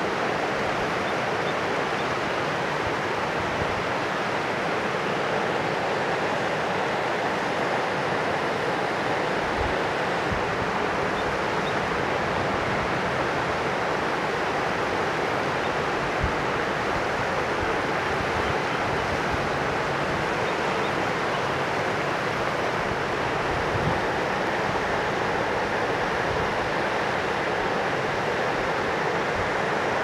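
A mountain river rushing steadily: an even wash of water noise that holds the same level throughout.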